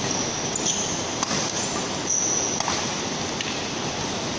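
Badminton rally: a few sharp racket hits on the shuttlecock and brief high squeaks of court shoes, over a steady hiss of hall noise.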